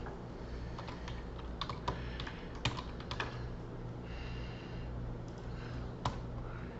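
Typing on a computer keyboard: scattered keystrokes, most of them grouped in the middle and one more near the end, over a low steady hum.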